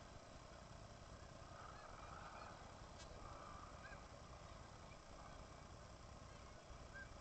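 Faint, scattered calls of seabirds at a cliff breeding colony, short arching notes over a steady hiss, with a brief click about three seconds in.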